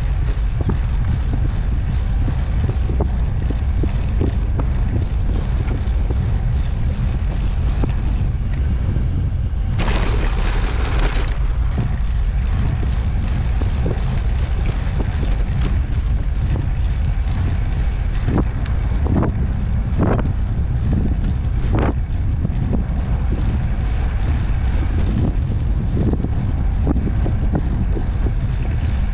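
Steady wind rumble on the microphone and tyre rolling noise from a recumbent trike riding along a paved path. A few short knocks come from bumps in the surface, and a brief hiss comes about ten seconds in.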